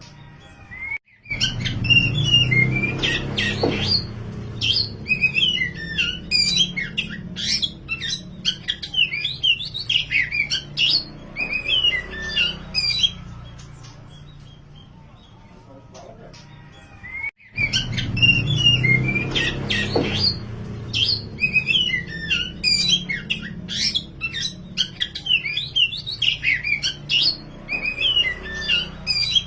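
Oriental magpie-robin (kacer) singing a vigorous full song of rapid varied whistles, trills and chattering notes over a low background hum. The recording drops out briefly about a second in and again after about 17 seconds, then the same song passage plays again, looped as a training recording.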